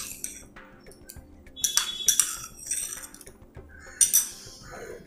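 A metal spoon clinking and scraping against a vessel several times as spoonfuls of sabja (sweet basil) seeds are added to a pot of milkshake.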